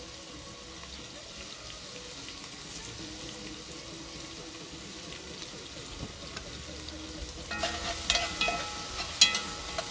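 Onions and fresh curry leaves sizzling in hot oil in a metal pot over a charcoal grill, a steady frying hiss. From about seven and a half seconds in, a spoon stirs and knocks against the pot in a few sharp clicks.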